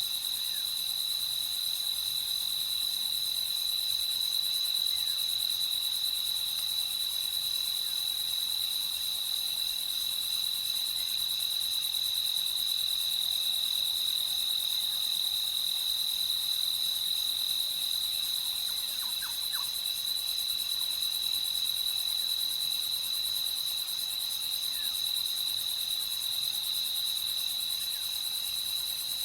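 Night chorus of crickets chirping continuously, a steady high trill with a fainter high-pitched insect hiss above it.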